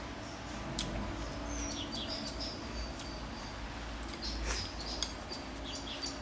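Eating sounds: chewing with small mouth clicks and chopsticks touching a bowl, over a steady low hum, with short high chirps scattered throughout.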